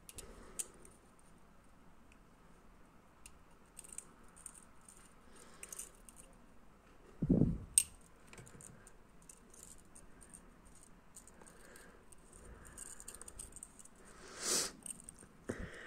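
Glass test tubes clicking and tapping against each other as they are handled, with light rustling. A short low thud about seven seconds in, and a brief rustle near the end.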